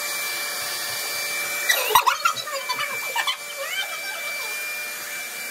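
Handheld hair dryer running steadily, blowing on hair, with a sharp knock about two seconds in.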